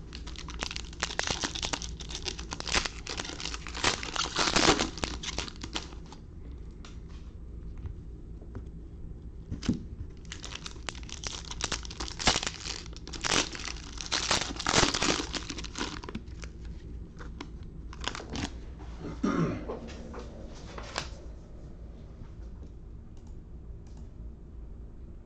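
Plastic wrapping crinkling and tearing under handling, in two long spells of dense crackling with a shorter one near the end.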